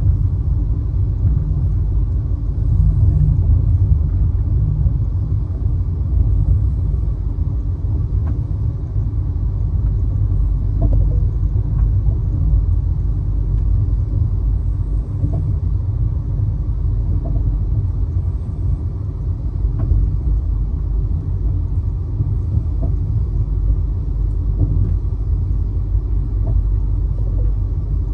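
Steady low rumble of an express train running along the track, heard from on board, with a few faint scattered clicks.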